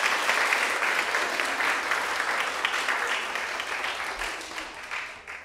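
Audience applauding with dense, steady clapping that dies away over the last second.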